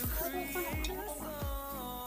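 Background music with a steady beat: a deep kick drum under a melodic line.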